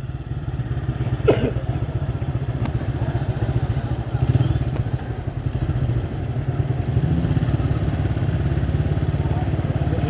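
Engine of the vehicle being ridden, running steadily with a fast even pulse while moving along the road, with one short sharp sound about a second in.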